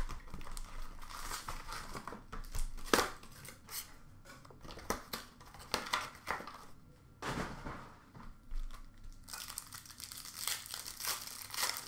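Hockey card pack wrappers being torn open and crumpled, an irregular crinkling and crackling, with a short lull about seven seconds in.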